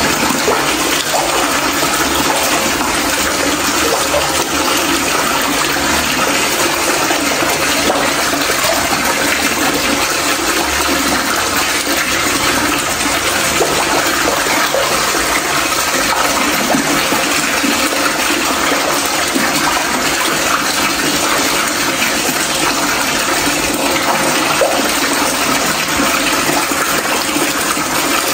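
Steady rushing water, a loud, even, unbroken hiss of flowing or falling water.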